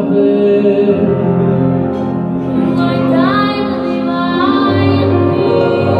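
Male vocal choir singing in close harmony into microphones, amplified through a sound system, with voices sliding up in pitch about halfway through.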